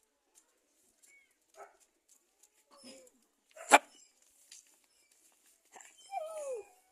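Scattered short animal calls, with one sharp, loud crack a little past halfway and a falling cry near the end.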